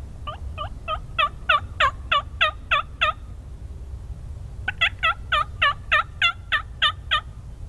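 Two runs of turkey yelps, each of nine or ten evenly spaced notes at about three or four a second, with a pause of about a second and a half between the runs.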